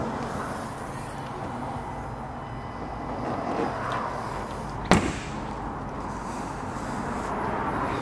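A car bonnet slammed shut once, a single sharp bang about five seconds in, over a steady low hum.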